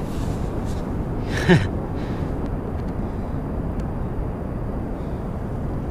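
Steady low rumble of ocean surf and wind on an open beach. About a second and a half in there is one short, breathy sound from the fisherman whose pitch falls.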